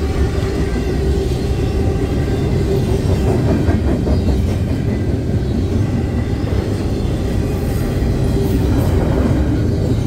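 Intermodal freight train's double-stack well cars and trailer flatcars rolling past at a grade crossing: a steady heavy rumble with the clickety-clack of steel wheels over the rail joints.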